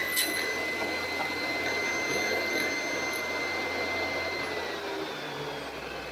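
An electric power saw's motor running with a steady whine, winding down about three-quarters of the way through, between cuts in wood.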